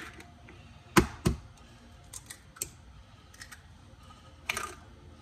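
Egg knocked against a hard edge to crack it: two sharp knocks about a second in, followed by a few lighter clicks and taps.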